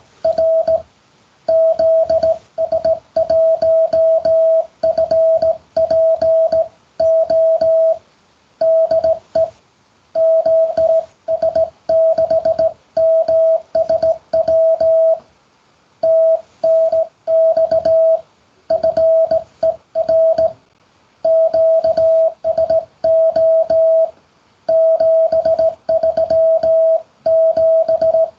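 Morse code (CW) sent as a single steady beep keyed on and off in dots and dashes, with short pauses between letters and words. It is a sent reply: roger, the two call signs, thanks for the contact and 73.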